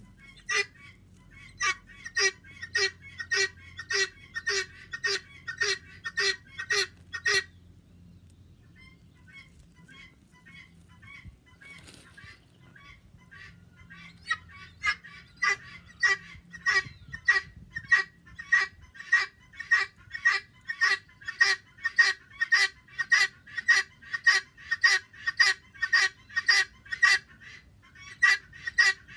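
Helmeted guineafowl giving its harsh, repeated call, about two calls a second. The calls drop to a much fainter series for several seconds in the middle, then come back loud.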